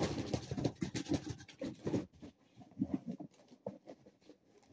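Cardboard box packaging scraping and rustling as an RC truck is pulled and worked out of it. A dense spell of scratching fills the first two seconds, then it thins to scattered light knocks and rustles.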